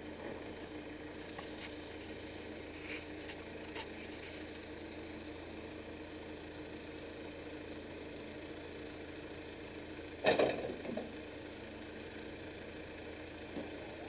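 John Deere 310D backhoe's four-cylinder diesel engine running steadily as the machine works. A single sudden loud knock about ten seconds in.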